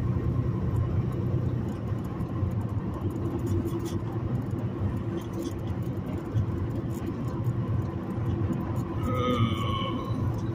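Steady drone of a semi-truck's engine and tyres at freeway speed, heard from inside the cab. A brief high-pitched sound rises above it about nine seconds in.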